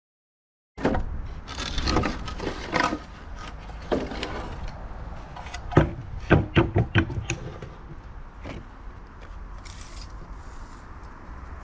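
Old wooden boards clattering and knocking as they are handled and laid down on a stack of used boards, with a run of sharp wooden knocks about six to seven seconds in, over a low steady rumble.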